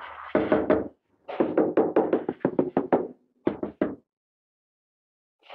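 Rapid knocking on a large porcelain tile slab, tapping it down to seat it in the tile adhesive. The strikes come in quick runs of about four a second, with a short gap near one second in, and stop about four seconds in.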